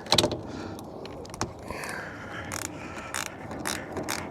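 Socket ratchet turning an 11 mm mirror-mounting nut: irregular metallic clicks and scrapes as the nut is loosened.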